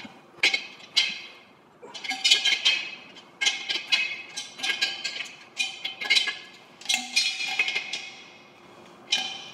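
A steel spanner clinking against the manifold fitting as it is unscrewed from the bottom of a steel grit-blaster tank, the hollow tank ringing after each knock. There are about a dozen sharp metallic clinks, irregularly spaced and some in quick clusters.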